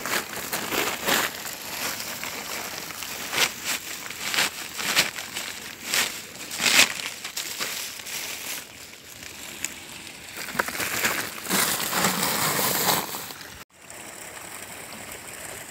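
Woven plastic feed sack rustling and dry fish-feed pellets rattling as feed is handled, in a series of irregular crinkling bursts.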